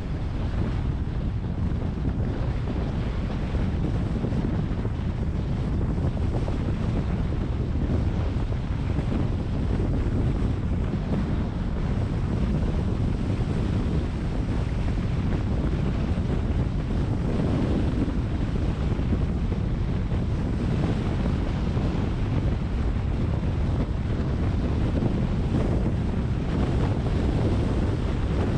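Steady low rumble of a car driving along at road speed: road and wind noise, with wind buffeting the microphone.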